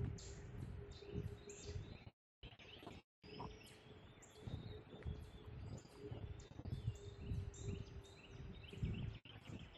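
Songbirds chirping and calling over and over, with low thumps about twice a second and a faint steady hum underneath. The sound cuts out completely twice, briefly, between about two and three seconds in.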